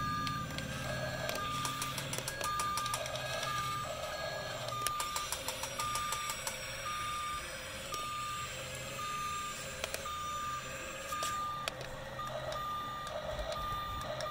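Electronic reversing-alarm beeps from a toy RC excavator, repeating evenly about one and a half times a second at one pitch, over the intermittent whine and clicking of its small electric motors and gears as the boom and tracks move.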